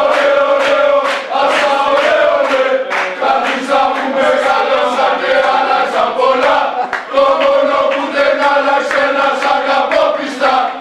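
A group of male football supporters chanting a song in unison, loud and steady.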